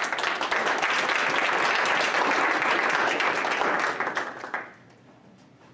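Applause, many hands clapping at once, dying away about four and a half seconds in.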